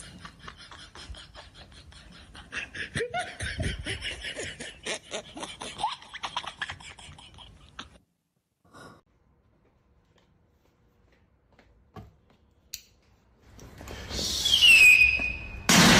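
Laughter in rapid bursts for about eight seconds, then near silence. Near the end comes a falling tone and a sudden loud bang.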